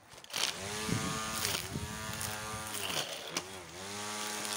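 Battery-powered string trimmer motor starting up about half a second in, then whirring as the line cuts grass. Its pitch dips briefly twice as the line bogs down in the grass and recovers.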